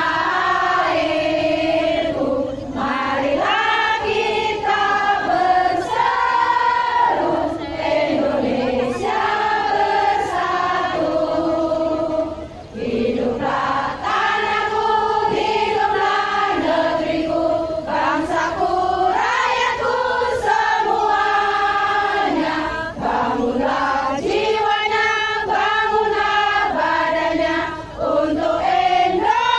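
A crowd of mostly women singing a song together, all on one melody, in long held phrases with short breaks between them.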